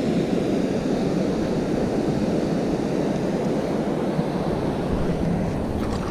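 Steady rushing noise of wind buffeting the microphone over the river's moving water, with a faint click near the end.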